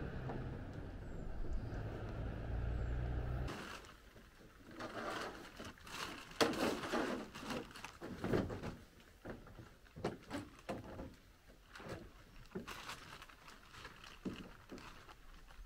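Plastic tarp rustling and crinkling in irregular bursts as it is handled and pulled over the bed of a pickup truck. For the first few seconds a steady low rumble is heard instead, which stops suddenly.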